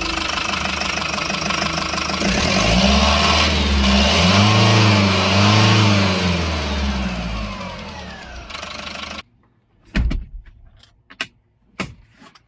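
Turbocharged diesel engine idling, then revved up and down a few times to test a newly fitted turbo intake pipe for boost leaks. The engine sound fades and cuts off about nine seconds in, followed by a few sharp clicks.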